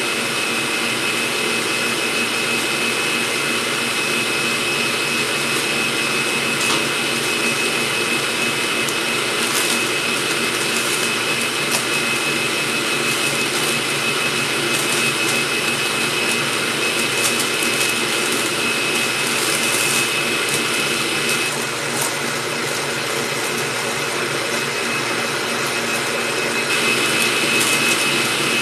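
Stand mixer running steadily, with a high whine, as it whips egg white protein powder and water toward stiff peaks. Parchment paper crinkles now and then as it is folded into a loaf pan.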